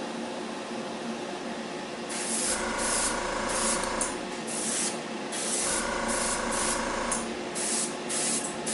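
Gravity-feed airbrush spraying paint in a dozen or so short hissing bursts, starting about two seconds in, as the trigger is worked on and off over the ribs of a small model part. A steady hum runs underneath.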